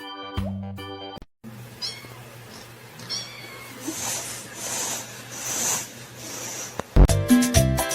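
A domestic cat meowing a few short times, after a snatch of music ends early on. Upbeat Latin-style music starts near the end.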